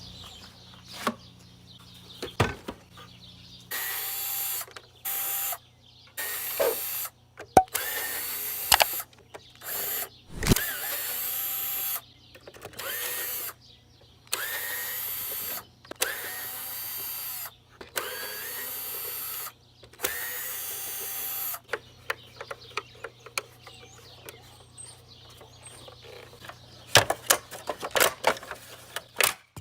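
A power drill or driver runs in about ten short bursts of one to two seconds each, each starting with a rising whine, as it backs screws out of an electric leaf blower during disassembly. Near the end come scattered clicks and knocks from the parts being handled.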